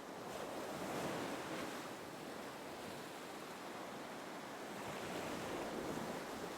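Gentle ocean waves washing on a shore, a soft steady surge that swells slightly about a second in and again near the end.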